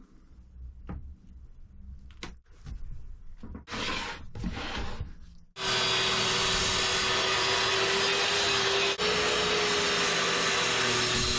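A few knocks and rubbing sounds of wood being handled, then, about five and a half seconds in, an electric spindle sander starts abruptly and runs loud and steady with a constant whine.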